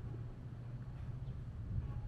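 Steady low rumble of background noise, with a few faint light ticks.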